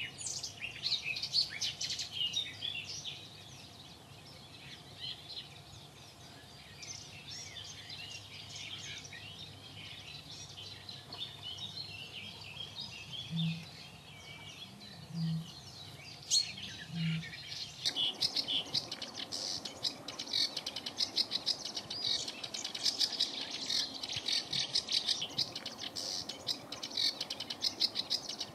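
Small birds chirping and singing. Around the middle come three low notes spaced evenly a couple of seconds apart, and from a little past halfway a fast, clicking chatter of calls takes over.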